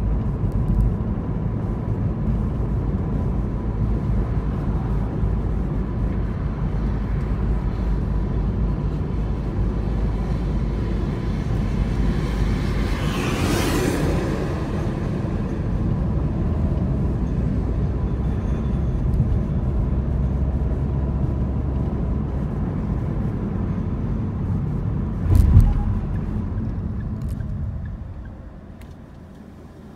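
Steady low road and engine rumble inside a moving car's cabin. About halfway through there is a loud whoosh that rises and falls, and a single thump comes a few seconds before the end. The rumble falls away near the end as the car slows to a stop at a red light.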